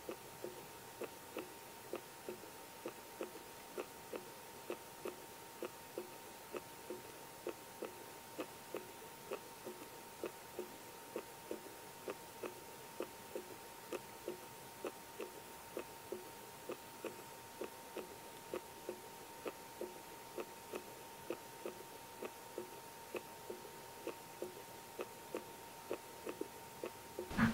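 Steady, even ticking, about two and a half ticks a second, like a clock, over a faint steady high hum. It stops suddenly at the very end.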